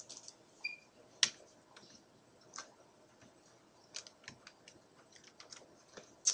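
Scattered clicks and taps of a computer mouse and keyboard, about a dozen, the sharpest about a second in and another near the end.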